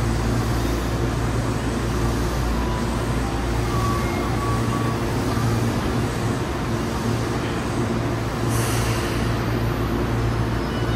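Stationary Tokyu 5050 series train standing at an underground platform with its doors open, its equipment giving a steady low hum. A short hiss comes about eight and a half seconds in.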